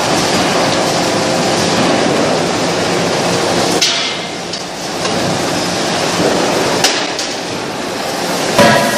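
Cross wedge rolling mill running as it rolls a red-hot steel billet: a loud, steady mechanical din that breaks off suddenly about four seconds in. A sharp knock follows near seven seconds, and a loud metallic clang comes near the end.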